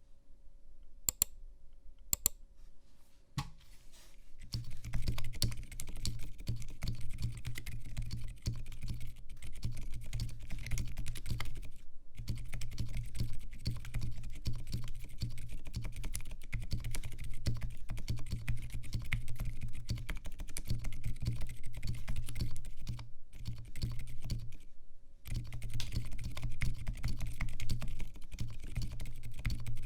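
Typing on a Southpaw75 mechanical keyboard fitted with lubed, TX-filmed Durock Silent Linear switches on 55g springs, with lubed Durock v2 stabilizers. A few single keystrokes come first, then fast, continuous typing from about four seconds in. There is a short pause about twelve seconds in and a longer one around twenty-four seconds.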